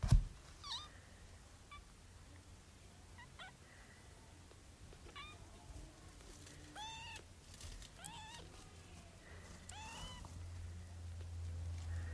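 Newborn sphynx kittens mewing: short, thin, high-pitched cries repeated every second or two. A sharp knock right at the start is the loudest sound, and a low steady hum builds near the end.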